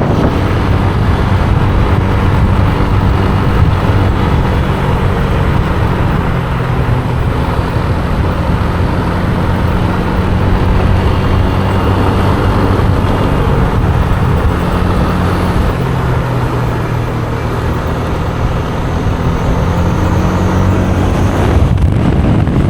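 Motorbike engine running steadily while riding along a road, with wind rushing over the microphone. The engine note shifts slightly about two-thirds of the way through.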